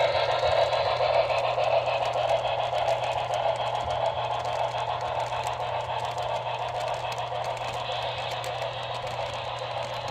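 HO-scale model passenger cars rolling along metal track: a steady rushing rumble of the wheels with fine rapid clicking, fading slowly as the train moves away.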